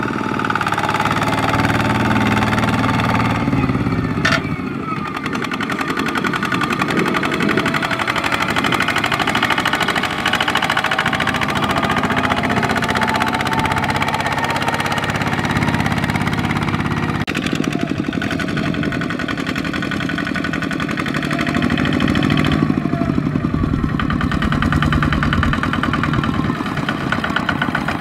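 Kubota ZT155 two-wheel walking tractor's single-cylinder diesel engine running with a rapid, even knocking beat while pulling a loaded rice trailer through mud and stubble. The sound changes abruptly twice.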